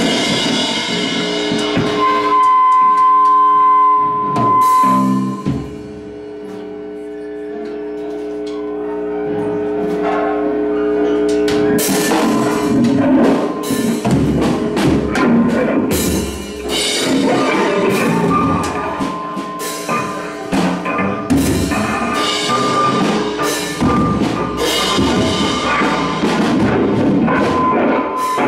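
Live noise band playing loud: held droning notes with a high steady tone in the first seconds, then from about twelve seconds in a dense, crashing wall of distorted guitar and bass with heavy hits.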